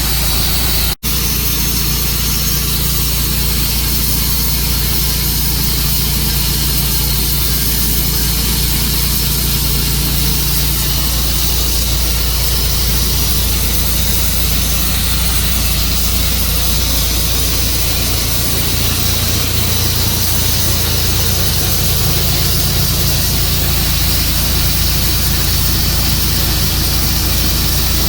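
Tru-Cut sawmill running steadily with its blade cutting through a juniper log, a constant engine drone under a hiss of sawing. The sound drops out for a split second about a second in.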